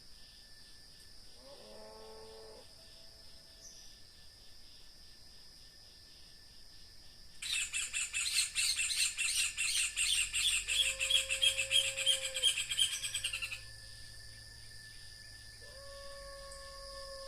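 A bird's loud, rapid chattering call lasting about six seconds, starting a little before halfway through, over a steady high trilling of crickets and other insects. Two fainter, lower held notes come in during the second half.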